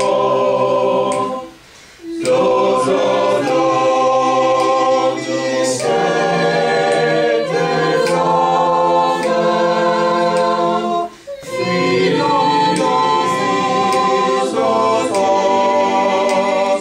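A small class choir sight-singing a harmonised exercise a cappella in solfège syllables, several voices holding long notes in chords. They break off for a breath about two seconds in and again about eleven seconds in.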